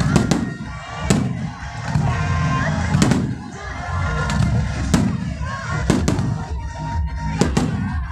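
Aerial fireworks bursting overhead with sharp bangs about every second, some in quick pairs, over loud music with a heavy low beat.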